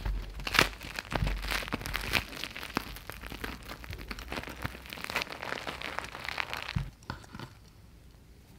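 Crisp coffee crust of a Papparoti/RotiBoy-style coffee bun crackling and crunching as hands squeeze and tear the bun open, with softer tearing of the bread inside. The crackling dies down about seven seconds in.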